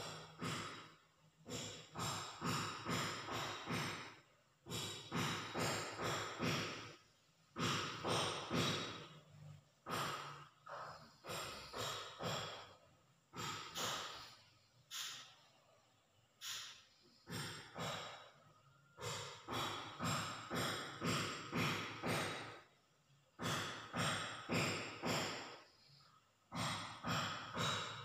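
A sleeping person snoring deeply, a fluttering, rattling snore on the breaths in a slow, steady rhythm of about one every two to three seconds.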